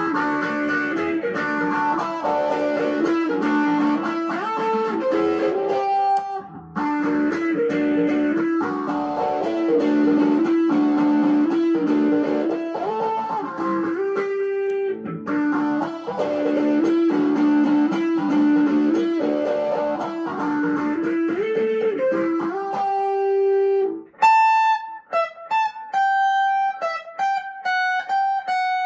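PRS SE McCarty 594 Singlecut electric guitar played through a Fulltone Full Drive 2 overdrive, MXR Phase 90 phaser and Electro-Harmonix Memory Toy delay into a Fender Champion 600 amp: a driven riff of chords over a repeating low line. About 24 seconds in, the tone changes to sparse single notes that ring out, played through a Wampler Tumnus overdrive and the same delay and amp.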